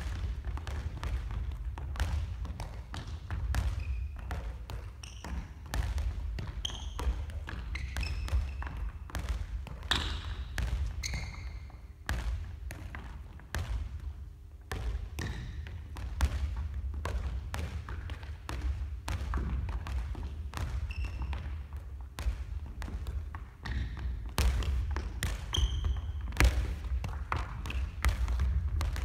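Small balls bouncing on a hardwood sports-hall floor and being tapped with the feet in a bounce-juggling drill. Two players' irregular, overlapping thuds go on throughout.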